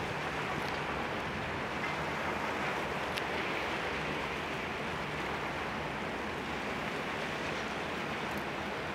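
Austal 47.5 m high-speed catamaran ferry running past at speed: a steady hiss of its wash over a low, even drone from its MTU diesels and KaMeWa waterjets.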